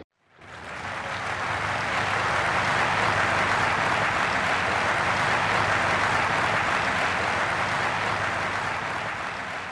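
Large audience applauding: dense, even clapping that swells in over the first two seconds, holds steady, and tapers off near the end.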